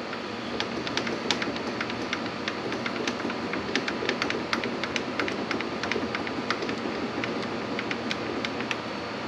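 Small metal chips clicking and ticking, several light irregular clicks a second, as they are brushed off a benchtop milling machine's vise and workpiece. A steady air conditioner hum runs underneath.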